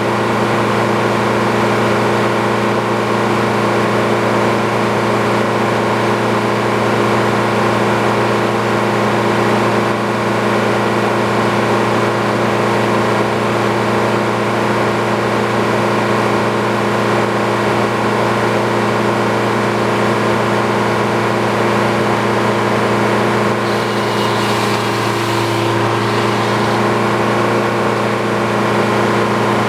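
Sawmill's engine running at a steady speed. About 24 seconds in, a brief hiss is added over it.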